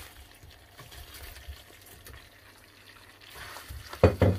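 A pan of tomato-based buffalo sauce simmering faintly as fried chicken wings are slid into it, then a spatula stirring and knocking against the pan near the end, the loudest part.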